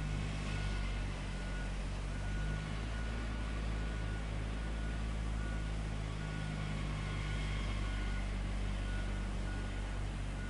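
Diesel engine of heavy road-paving machinery running steadily, with a high beep repeating about once a second.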